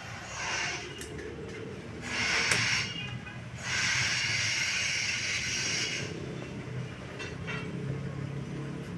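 Four-cylinder turbo diesel engine of a super-silent generator set running steadily with a low hum. Three bursts of hissing come over it: a short one at the start, one at about two seconds, and the longest from about three and a half to six seconds in.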